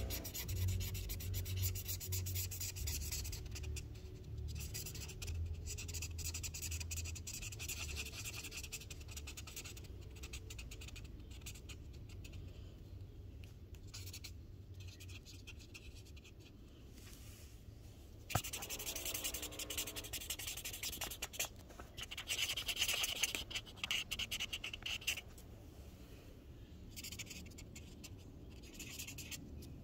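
A marker scratching across paper in quick, irregular strokes as a drawing is coloured in, with a sharp click about eighteen seconds in.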